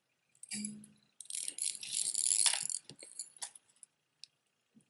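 Costume jewelry (beads, faux pearls and chains) jangling and clicking as it is rummaged through and picked up by hand. The jangle is densest for about a second and a half, then thins to a few light clicks.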